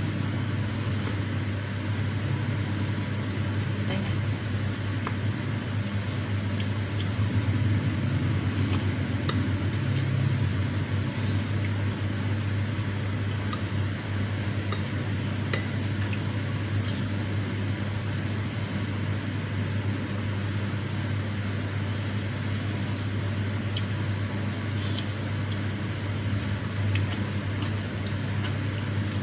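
Eating sounds: a wooden spoon and wooden chopsticks clicking against a glass bowl, and the slurping of spicy broth and enoki mushroom strands, with scattered sharp clicks. A steady low hum runs underneath.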